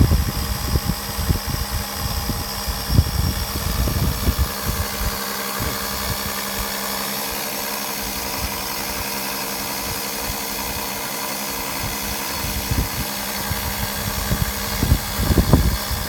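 Electric oil extractor pump running with a steady hum, sucking the old engine oil up through the dipstick tube into its canister. Low rumbling bumps come and go in the first few seconds and again near the end.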